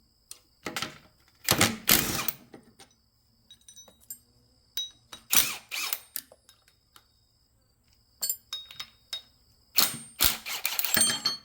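Metal brackets and hand tools clicking and clanking as a motor starter is taken apart, in irregular knocks with short quiet gaps; the loudest clatter comes about two seconds in and again near the end.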